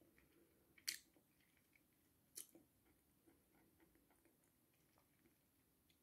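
Faint chewing of dry uncooked pasta with the mouth closed, with two sharp crunches, one about a second in and one about two and a half seconds in.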